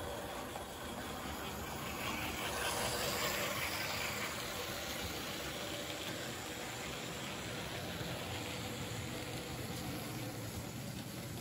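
Märklin H0 model trains running on metal track: a steady rolling rumble of wheels and motors, louder for a couple of seconds about two seconds in.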